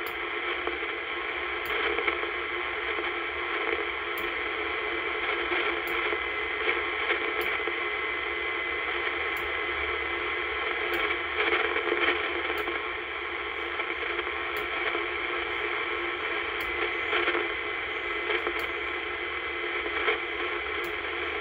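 Steady static hiss from a 1970s Royce CB radio's speaker with the squelch wide open, as the channel selector is clicked through the band, a short click a little under once a second. No stations come through, only band noise on an untuned antenna.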